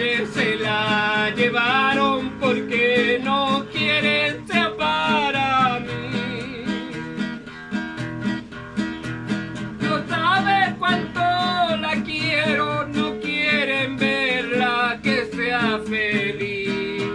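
Folk song music: an acoustic guitar strummed in a steady rhythm under a wavering melody line with vibrato.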